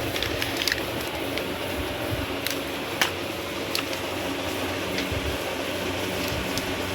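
Steady machine hum with scattered sharp clicks and knocks, the loudest knock about three seconds in.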